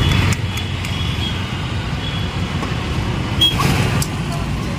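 Steady rumble of road traffic on a busy street, with a few short clicks.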